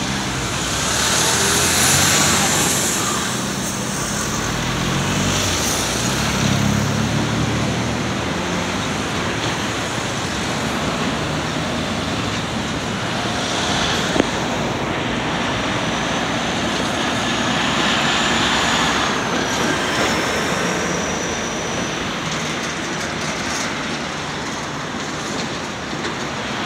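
Electric tram pulling away from a stop, its traction motors rising in pitch over the first several seconds, with road traffic running throughout. A sharp click comes about 14 seconds in, and a thin high whine slides up and down for several seconds while another tram approaches along the track.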